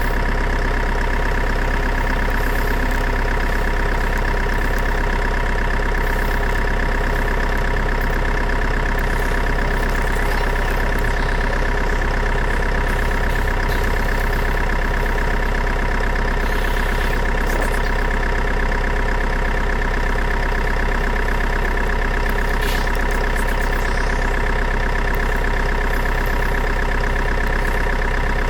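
A motor running steadily with an even, unchanging drone that holds one pitch throughout.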